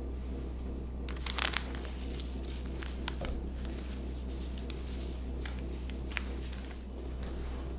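Crinkling and rustling of packaging as purchases are unwrapped, with a burst of crinkles about a second in and a few sharp clicks later, over a steady low hum.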